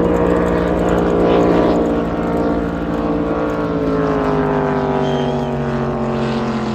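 Ski race boat's engine running flat out as it passes at speed, its pitch holding steady and then falling away from about three seconds in.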